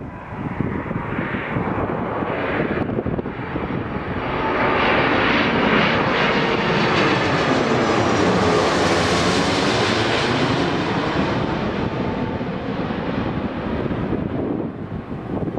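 Airbus A330-200 jet engines passing on landing approach: the roar swells to its loudest about midway, with a sweeping, shifting tone as the aircraft goes by, then fades.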